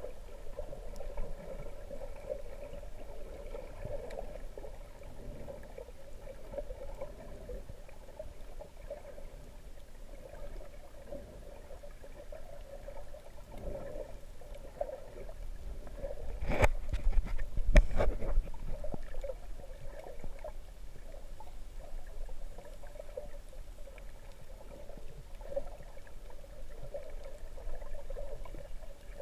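Muffled underwater sound picked up by a camera held below the surface: a steady low rush and sloshing of water. A few sharp knocks come a little past the middle, the loudest moment, like the camera housing being bumped or handled.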